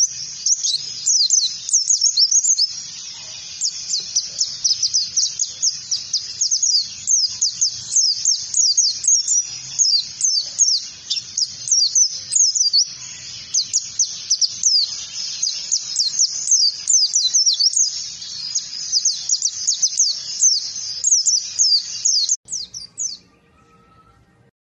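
Pleci (white-eye) singing a fast, unbroken stream of high chirps and quick downward-sweeping notes, the continuous 'ngalas' song style used as a lure to teach caged birds. The song stops abruptly near the end.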